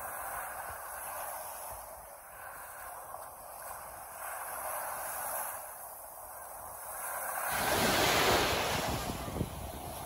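Sea surf washing onto a beach in strong wind, swelling and easing, with a louder rushing surge about seven and a half seconds in that lasts a couple of seconds.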